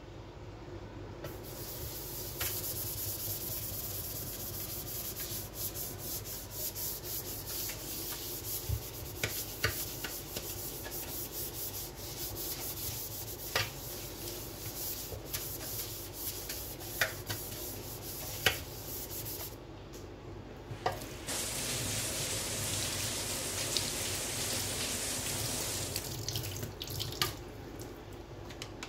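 Plastic-bristle dish brush scrubbing a soapy stainless-steel sink, a rapid scratchy rubbing with a few sharp knocks against the steel. Tap water runs into the sink near the end.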